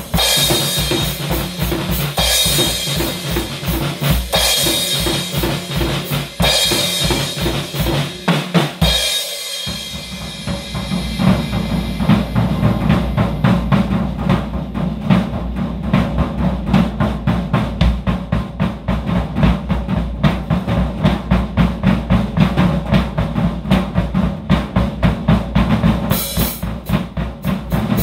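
Drum kit played live: cymbal crashes ring out every couple of seconds over the drums at first. After a short break about nine seconds in comes a long, fast run of drum strokes with the bass drum under it, and the cymbals come back near the end.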